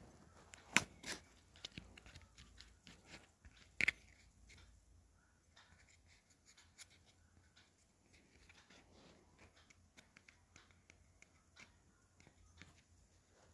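Faint scattered taps and clicks of fingers on a tablet's touchscreen and of handling the tablet, with a few louder taps in the first four seconds.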